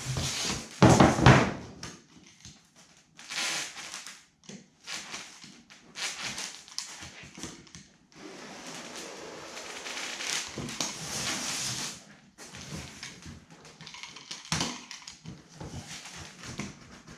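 Spline roller tool being run around a window screen frame, pressing the spline into its channel: irregular scraping and rustling of the tool and screen, with a loud knock about a second in.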